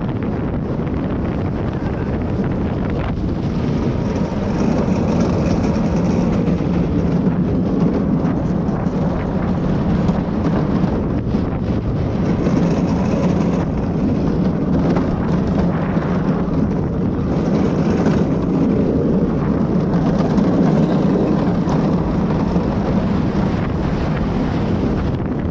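Steady wind noise on an action camera's microphone over a continuous low rumble, swelling and easing a little without stopping.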